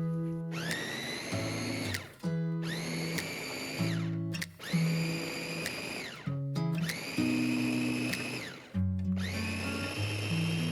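A small electric kitchen appliance motor run in five short pulses of about a second and a half each, its whine rising as each pulse starts and dropping as it stops, over background pop music.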